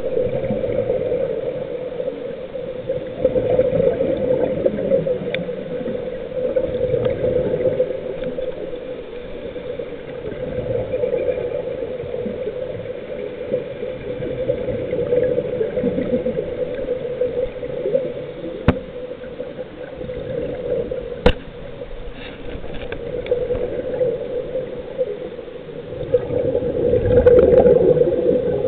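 Underwater sound of scuba divers breathing through their regulators: exhaled bubbles gurgle in swells every few seconds over a steady hum. Two sharp clicks come about two-thirds of the way through.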